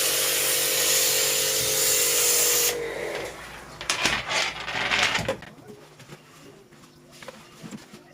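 A small electric pressure washer runs with its motor whining under a loud hiss of water spray, then cuts off about three seconds in. A few short bursts of spray follow a second or so later.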